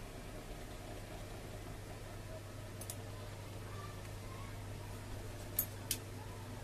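Small sharp clicks from a disassembled smartphone and metal tweezers being handled on a repair mat: a faint click a little before the middle and two crisp clicks close together near the end, over a steady low hum.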